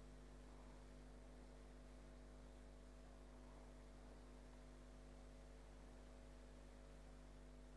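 Near silence: a faint, steady hum with light hiss, the recording's background tone.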